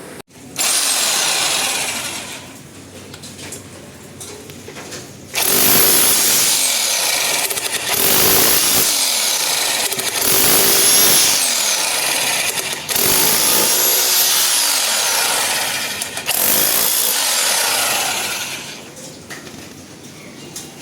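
A 1500 W electric rotary hammer running in bursts: a short run just after the start, then a long run of about fourteen seconds, broken by brief dips, before it stops near the end.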